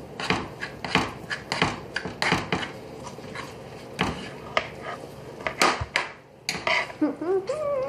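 Kitchen knife cutting an overripe tomato on a cutting board: irregular knocks of the blade striking the board.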